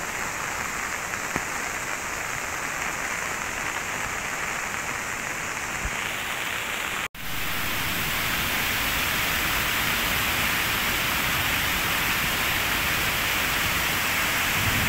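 Steady hiss of rain falling for about seven seconds. After an abrupt cut, the louder, steady rush of a river swollen by a flash flood takes over.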